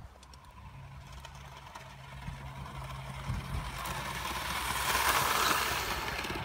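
Miniature railway locomotive modelled on LNER A4 60024 'Kingfisher', running along garden track toward and past the microphone. A low steady rumble grows into a hissing rush that is loudest as it passes, about five seconds in, then eases.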